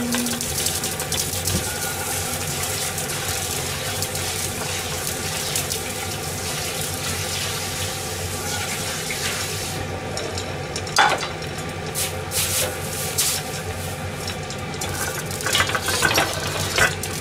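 Clams steam-frying in garlic olive oil inside a covered saucepan on a gas burner: a steady hiss of steam escaping under the lid, which is spinning round on the steam. A single sharp click about eleven seconds in, and a few crackles near the end.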